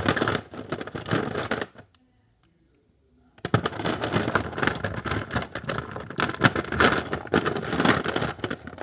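Off-screen rummaging: crinkling, rustling and clicking of plastic as small toys are searched through, for about two seconds, then a pause of about a second and a half, then steady rustling again.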